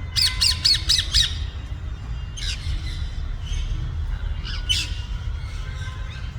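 Parrots squawking: a quick run of about six harsh calls in the first second or so, then single squawks about two and a half and four and a half seconds in.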